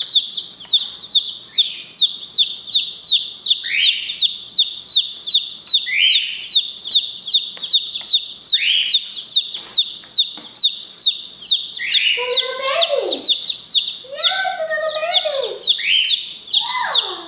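Light Brahma chicks peeping: one loud, high peep repeats about three times a second while other chicks chirp around it. Lower, falling calls join in over the last few seconds.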